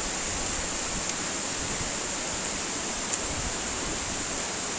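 Rushing water of a mountain river, a steady, even noise with no letup, with a couple of faint ticks about one and three seconds in.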